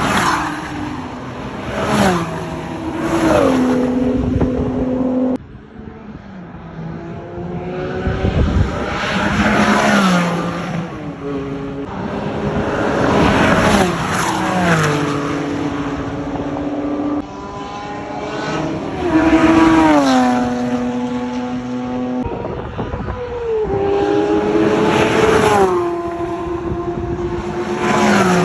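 A string of Porsche racing cars passing at high revs, near 9000 rpm, one after another. Each engine note drops in pitch as the car goes by. The sound cuts abruptly between clips a few times.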